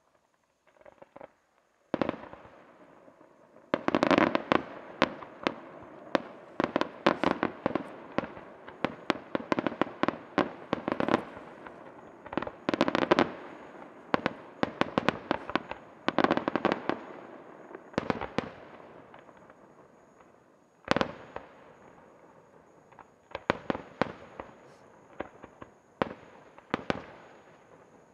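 Aerial fireworks display: after a few faint pops, a rapid, dense string of shell bursts and launch bangs starts about two seconds in and runs for over ten seconds, then thins out. A single loud burst comes about three-quarters of the way through, followed by another scattered cluster of bangs near the end.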